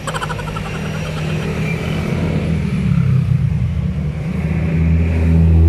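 Engine of a nearby road vehicle rumbling steadily, growing louder near the end as it revs or draws closer.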